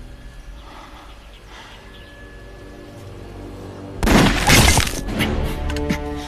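A sudden loud burst of gunfire with bullets cracking into wood about four seconds in, lasting about a second, then a few more sharp cracks. A dramatic music score plays underneath throughout.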